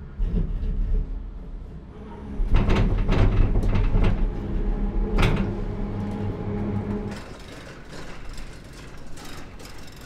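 Cable car gondola machinery picked up through a contact microphone: a low rumble that swells about two and a half seconds in, with a steady hum and a few sharp clanks. After about seven seconds it eases into lighter rattling ticks.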